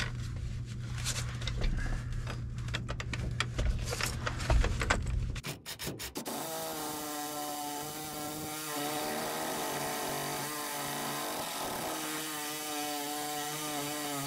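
Reciprocating saw (Sawzall) cutting through a seized steel bolt holding a truck's stock bump stop to the frame. At first there is a low hum with rapid rattling knocks. About six seconds in the sound changes suddenly to a steady whine over a cutting hiss.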